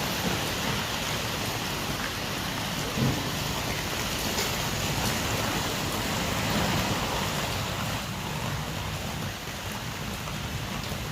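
Steady rain falling, an even continuous hiss, with a slightly louder patter about three seconds in.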